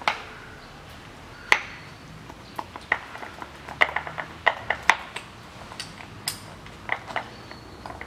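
Hammer striking a pin punch to drive the split pin out of the reverse-gear shift fork in a manual gearbox: a series of sharp metallic taps at uneven spacing, some ringing briefly, with the heaviest blows at the start, about a second and a half in, and around four and five seconds in.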